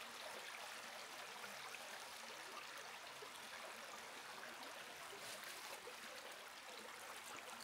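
Faint, steady rush of river water flowing.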